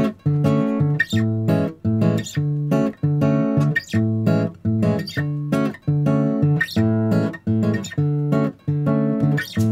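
Background bossa nova music: acoustic guitar strumming chords in a steady, even rhythm, about one chord a second.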